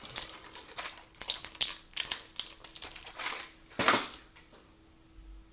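Small clicks and crinkling from handling a blister pack of fenofibrate tablets and a small steel pillbox, with one sharper click about four seconds in, then quiet.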